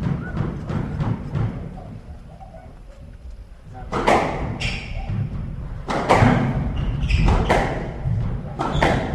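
Squash rally: the ball is struck by rackets and hits the court walls in a string of sharp cracks starting about four seconds in, each ringing briefly in the enclosed court.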